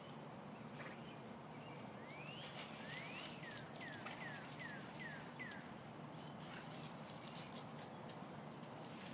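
A dog whining: two rising whines, then a run of about six short falling whines, roughly three a second, while ivy leaves rustle and crackle as the dogs push through them.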